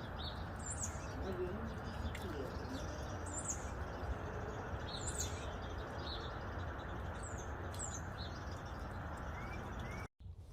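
Small solar fountain pump's spray pattering steadily into a bird bath, while wild birds chirp several short, high, falling notes at intervals.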